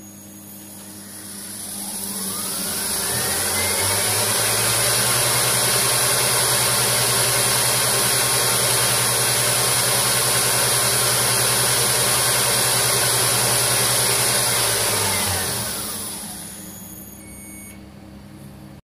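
Hapfo wood lathe spinning its empty balancer faceplate up to about 3900 rpm: a whine rises over about three seconds, holds steady with a loud rushing hum, then falls away as the spindle slows near the end. The faceplate is itself balanced and runs at full speed.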